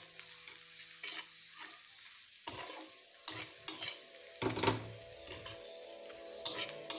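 Metal spatula stirring and scraping onions and green chillies around a metal kadai, in irregular strokes against the pan, while they fry in oil with a faint sizzle.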